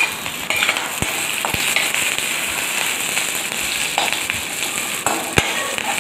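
Tempering of dried red chillies, mustard seeds, curry leaves and a fresh cumin, pepper and garlic paste sizzling in hot oil in a metal kadai, stirred with a steel ladle. A steady frying hiss runs throughout, with a few sharp clicks.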